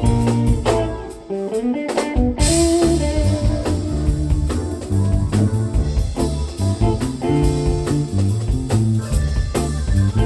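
Live band playing an instrumental passage with electric guitar and drum kit. The music drops back briefly about a second in, then the full band comes back in with a sharp hit.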